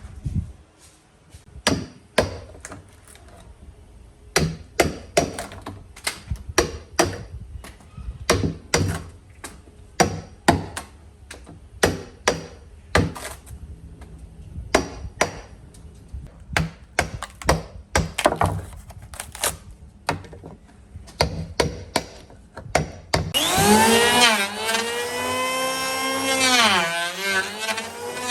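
Hand-tool strikes on wood, a long run of irregular sharp knocks about one to two a second. About 23 seconds in, a power tool's motor starts up and keeps running, its pitch dipping and recovering again and again as it bites into the work.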